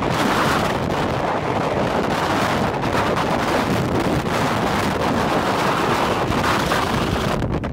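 Strong storm wind blowing hard across the microphone with a dense, steady rush of noise, thinning out just at the end.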